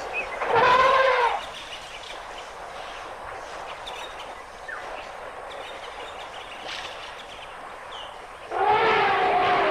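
African elephant trumpeting: a short blast about half a second in and a longer, louder call near the end, with quiet outdoor ambience in between.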